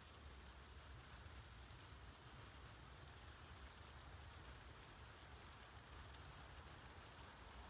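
Near silence: steady faint outdoor background with a low rumble and a soft hiss, no distinct sound.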